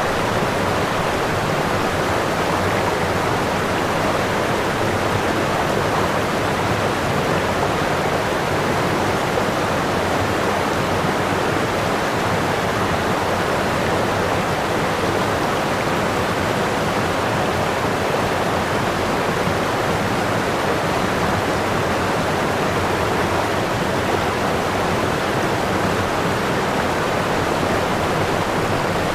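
Running water, a steady even noise that does not change.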